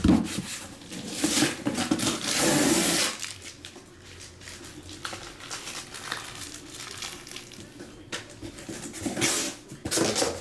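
Handling noise from cardboard and shrink-wrapped boxes: a longer rustle about two to three seconds in, then scattered light knocks and rustles.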